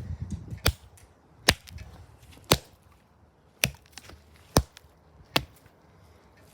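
Six sharp hard blows striking a cheap plastic toy RC car, roughly one a second.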